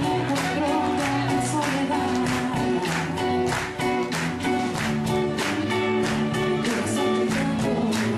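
A live band playing in a room: electric guitars, bass and a drum kit with a steady beat, and a voice singing over them.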